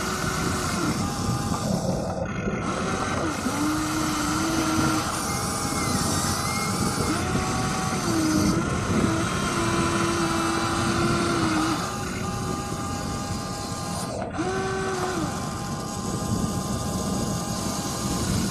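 Electric motors of a Huina remote-control excavator whining as the boom, arm and bucket move through soil, in short pitched tones that start, hold and glide up or down as each function is worked.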